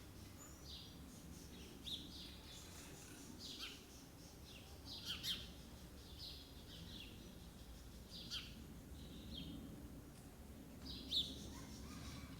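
Several birds calling with short, high chirps and whistles, scattered irregularly, over a faint low background hum.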